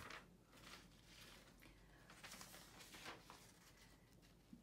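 Near silence: room tone, with a few faint soft rustles.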